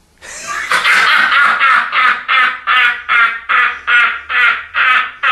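A man laughing loudly and hard in a long run of rhythmic, high-pitched bursts, about three a second, beginning about a quarter second in.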